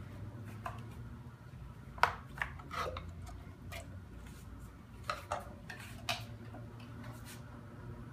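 Wire whisk clinking and tapping against a mixing bowl while a thick cream mixture is stirred: a dozen or so irregular clinks, the loudest about two seconds in, over a steady low hum.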